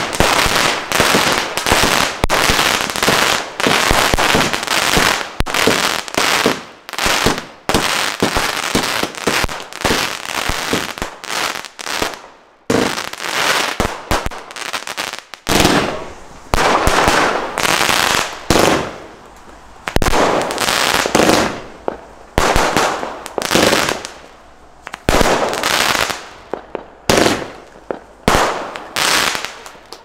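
Consumer aerial firework cake firing: a rapid string of launches and bangs for about twelve seconds, a short pause, then the bangs come more widely spaced.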